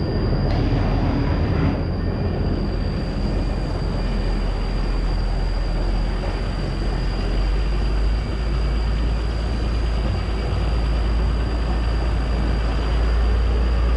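A heavy diesel engine running steadily, a deep low rumble with a thin steady high whine above it.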